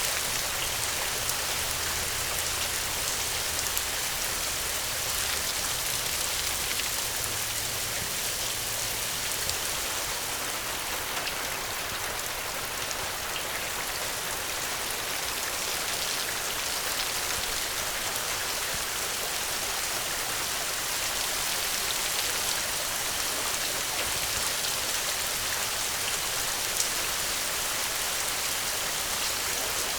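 Steady rainfall: a dense, even hiss of drops with many small individual drop ticks.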